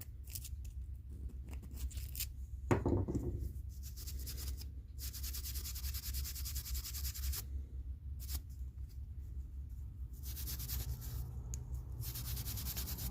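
Cleaning grime from the jaw and rails of an old Crescent double-ended adjustable wrench: several bursts of scrubbing, each lasting a couple of seconds, with a single knock about three seconds in.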